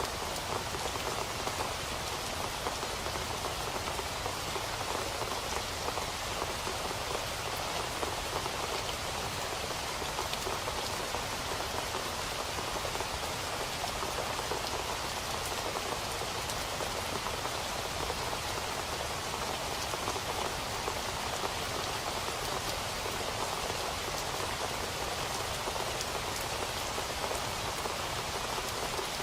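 Steady rain falling, an even hiss of many drops with faint individual drop ticks, unchanging throughout.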